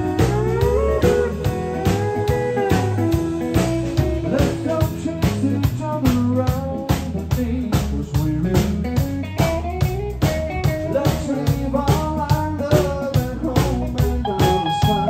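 Live country band playing: a pedal steel guitar plays sliding, gliding lines over electric guitar, electric bass and a steady drum kit beat.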